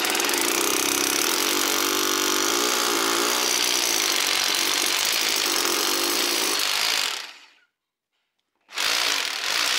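Bosch rotary hammer with its hammer action on, drilling a 9 mm pilot hole through a plastered wall. It runs steadily for about seven seconds, stops, then starts again briefly near the end.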